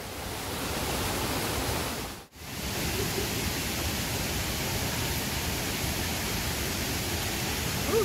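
Steady rush of falling water pouring into a pool, cutting out briefly about two seconds in before resuming.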